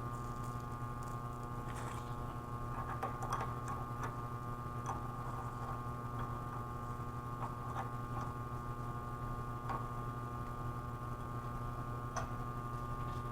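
A steady hum with faint, scattered ticks and small crackles over it.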